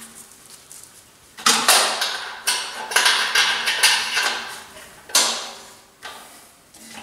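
Stainless steel ash bucket and funnel clanking against the steel stand and kettle grill bowl as they are handled and fitted by hand: a run of sharp metallic knocks with short ringing tails starting about a second and a half in, and one more knock near five seconds.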